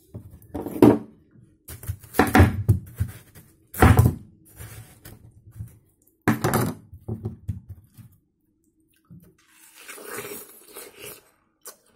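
Watermelon being broken into slices by hand and handled on a wooden table: four loud wet cracks and thunks in the first seven seconds, then a softer, juicy crunch of a bite into a slice about ten seconds in.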